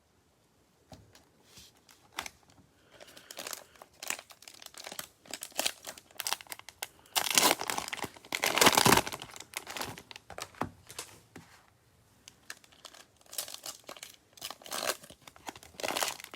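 Cellophane wrapper of a trading-card pack crinkling and tearing as it is ripped open by hand, with the loudest stretch of tearing about seven to nine seconds in.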